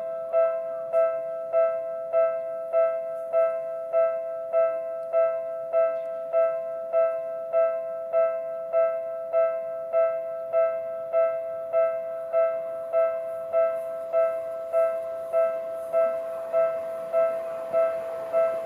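Japanese railway level-crossing warning bell ringing its electronic two-tone 'kan-kan' strike over and over at an even pace, a little under two strikes a second, signalling that a train is coming. The noise of an approaching train grows under it near the end.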